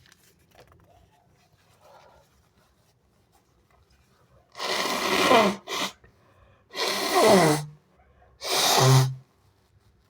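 A person sneezing three times in a row, wet sneezes about a second and a half apart, starting about four and a half seconds in; each is a loud blast with a voiced cry that falls in pitch.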